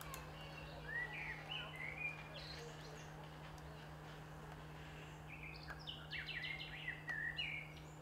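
Birds singing in two short bouts of varied chirps and whistled notes, about a second in and again from about five and a half seconds, over a steady low hum.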